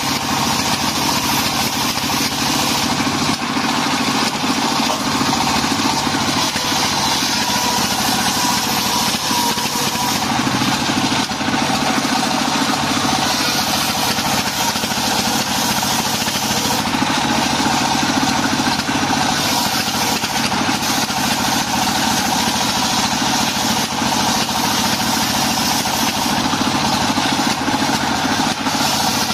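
A stationary single-cylinder diesel engine runs steadily, driving a homemade table circular saw whose blade is cutting through lamtoro (leucaena) wood planks.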